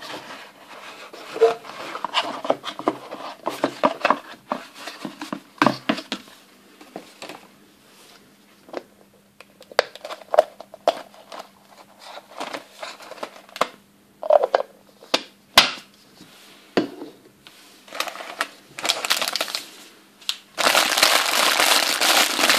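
Packaging being handled: the cardboard box of a Playmobil Easter egg opened, with scattered rustles, scrapes and clicks, and then the pink plastic egg pulled apart. Near the end a clear plastic bag of parts crinkles loudly and steadily.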